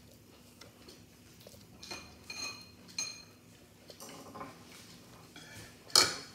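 Metal fork and spoon clinking against a ceramic plate while eating noodles: a few light ringing clinks, then a louder clatter about six seconds in.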